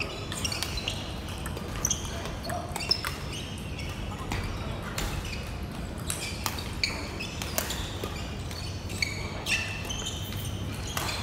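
Table tennis balls clicking off paddles and tabletops, irregular sharp clicks from rallies at several tables at once in a large hall, with voices in the background.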